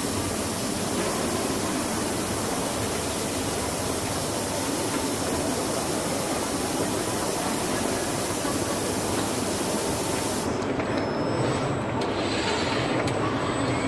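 Compressed air hissing steadily and loudly at a robot-held Nakanishi E4000 motor spindle while it deburrs a drilled cross hole. The hiss cuts off abruptly about ten seconds in, leaving a quieter machine hum with a few light clicks as the cutter is withdrawn.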